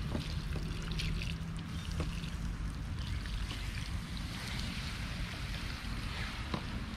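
Campfire being put out with water: steady hissing and trickling on the embers, with scattered small crackles.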